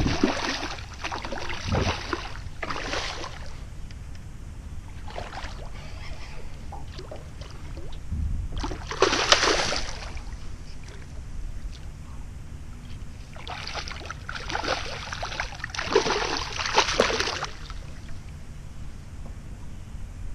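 A hooked redfish splashing at the surface beside a small boat, in several bursts one to three seconds long: at the start, around the middle and again in the last third, over a low steady rumble.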